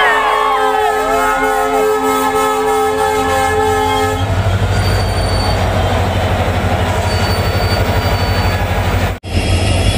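Diesel locomotive's air horn sounding one long steady chord for about four seconds. Then the locomotive's diesel engine runs close by with a deep rumble.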